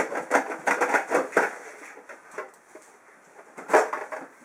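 Plastic clicks and knocks from a Little Giant condensate pump being taken apart by hand: its motor head is unclipped and lifted off the plastic reservoir to reverse it. A quick run of clicks in the first second and a half, then a single sharp snap near the end.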